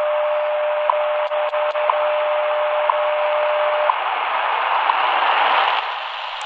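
Shortwave time-signal station WWV on 10 MHz, heard through the speaker of an XHDATA D-328 portable radio: a steady tone under static hiss, with a short tick once a second. The tone stops about four seconds in while the ticks go on, then the hiss grows and cuts off abruptly at the end.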